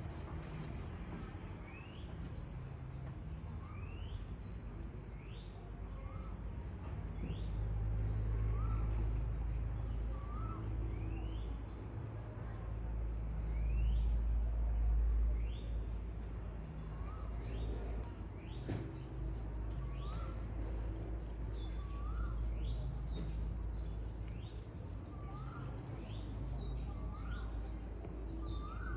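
A bird calling over and over, short rising notes roughly every second or two, over a low rumble that swells in the middle.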